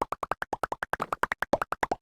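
Rapid, unbroken chatter of very short synthesized blips, about ten a second, each at a different pitch, like a cartoon character's gibberish voice effect.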